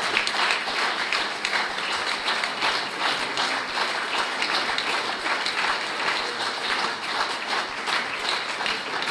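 Audience applauding: many hands clapping in a steady, unbroken patter.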